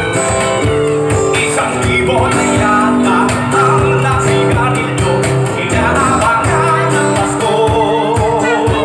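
Live band music: singing over acoustic guitar and hand percussion, with a steady beat.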